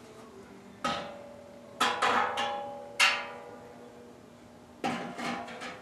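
Stainless steel combustion chamber sections of a Fairchild J44 turbojet knocking and clanking against each other as the inner liner is fitted into the outer combustor ring. There are several sharp metallic knocks, each leaving a short ringing tone.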